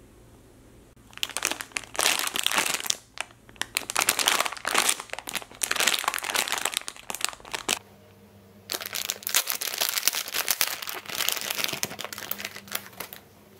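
Clear plastic packaging bag crinkling as it is handled and opened to take out a foam squishy, in two spells of several seconds each with a short pause between.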